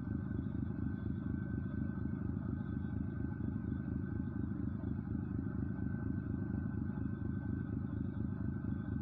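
An engine running steadily: a constant low drone with a fast, even pulsing.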